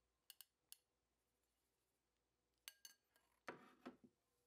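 Faint clinks of a silicone spatula touching a stainless steel mixing bowl: three light taps, then two more a couple of seconds later, followed by a short scrape and squish as the spatula folds flour into the batter near the end.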